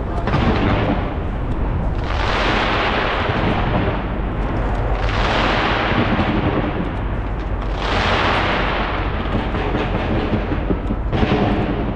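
Fireworks bursting in rapid barrages: a continuous rumble of explosions and crackling, with a fresh surge of bursts every two to three seconds, five in all.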